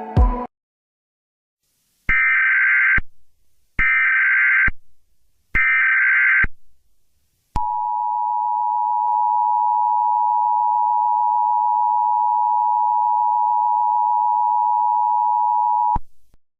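Emergency Alert System tones: three short bursts of the digital SAME header, each about a second long with a gap between, then the two-tone attention signal held steady for about eight seconds before cutting off suddenly.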